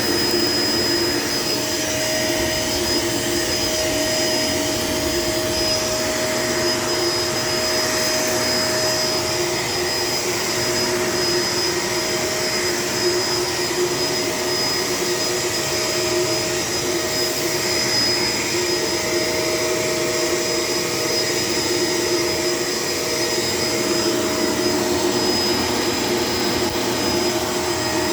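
Bagless vacuum cleaner running steadily while pushed over the floor, a constant motor drone with a steady high whine.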